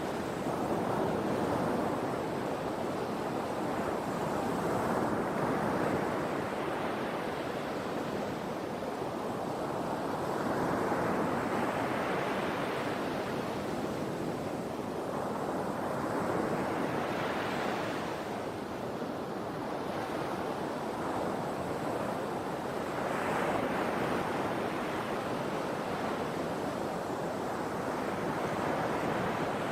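Sea waves breaking and washing ashore: a continuous surf that swells and eases, with a wave cresting every five or six seconds.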